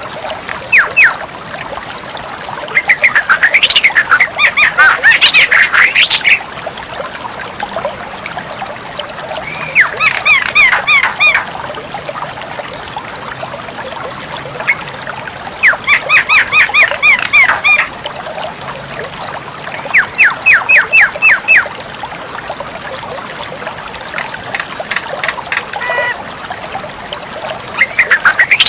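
Javan myna calling in bouts of rapid, evenly repeated chattering notes every few seconds, the longest bout a few seconds in, over a steady background hiss.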